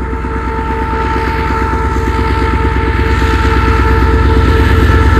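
Diesel locomotive engine working hard under load as it hauls a passenger train up a grade, a fast, even low throb with steady whining tones above it. It grows louder as the locomotive comes past.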